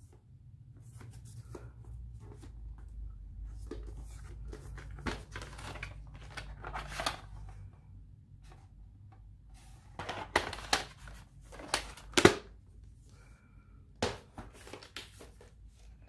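Hands handling a plastic clamshell VHS case and its cassette: plastic rubbing and scraping, then a run of sharp clicks and knocks, the loudest about twelve seconds in.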